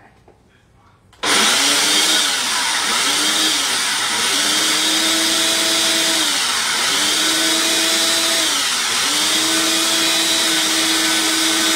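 Electric blender switched on about a second in, running loudly while it blends pumpkin puree and banana into a filling. Its motor pitch dips and recovers every couple of seconds.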